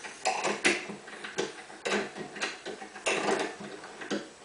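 Spanner working the nut on a bolt, giving a series of sharp metal clicks and clinks about two a second, as the bolt is tightened down to pull a stuck rifle case out of a full-length sizing die.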